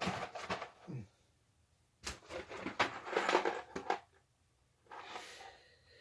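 Groceries being rummaged through in a donated food box: packages rustling and knocking against each other. There is a short burst in the first second, a louder one lasting about two seconds in the middle, and a fainter rustle near the end.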